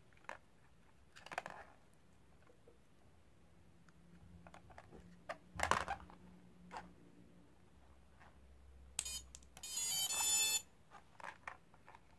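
Handling clicks of small plastic wire connectors, the sharpest a little before halfway, then electronic beep tones from the quadcopter's electronics as they are powered: a short beep followed by a longer one about a second long near the end.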